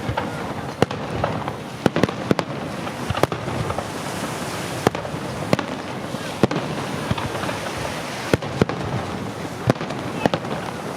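Fireworks display: shells bursting in sharp bangs at irregular intervals, roughly one or two a second, over a continuous din.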